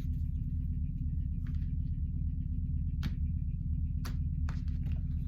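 Oracle cards being handled, a few sharp taps and clicks as the deck is shuffled and cut, over a steady low hum.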